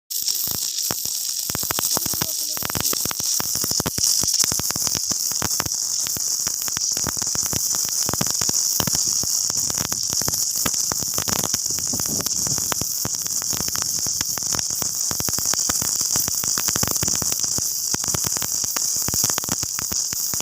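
Submerged arc welding in progress: a steady high-pitched hiss with dense, continuous crackling.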